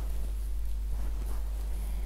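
Fingers massaging a man's scalp and moving through his hair, a soft rustling scratch, over a steady low hum.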